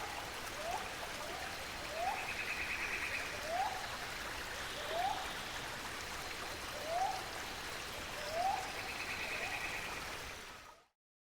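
Wetland wildlife ambience: a short rising call repeated about every one and a half seconds, and twice a higher buzzy trill, over a steady hiss. It fades out near the end.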